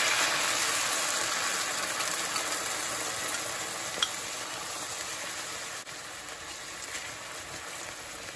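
Homemade tamarind sauce sizzling hard as it hits a hot pot of caramelized palm sugar and ginger, the sizzle slowly dying down as the liquid cools the pan. One light click about four seconds in.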